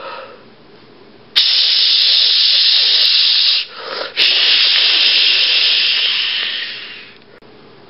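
A loud, steady hiss that starts suddenly about a second and a half in, breaks off for a moment near the middle, then resumes and fades away near the end.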